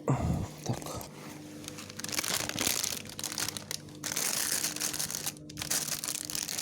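A packet of sunflower seeds rustling and crinkling as it is handled, in several stretches with short pauses, over a faint steady hum.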